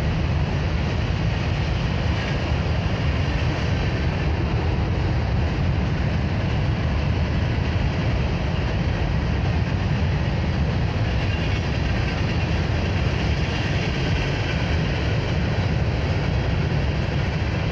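Freight train of covered hopper cars rolling past on the far track, a steady low rumble of wheels on rail.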